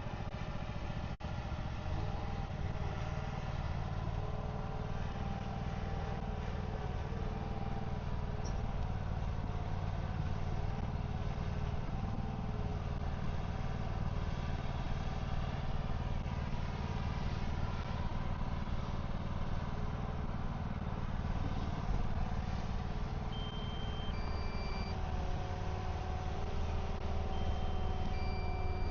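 Truck engine running steadily at low revs while slowly pulling a building into position. A few short high beeps sound near the end.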